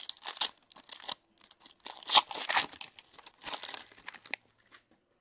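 Foil wrapper of a hockey card pack being torn open and crinkled by hand: irregular crackling, loudest in the middle, that dies away shortly before the end.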